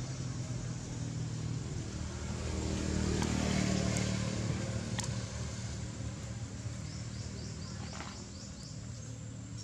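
A motor vehicle's engine drones low, growing louder to a peak about three or four seconds in and then fading as it passes. Near the end comes a quick run of short, high chirps.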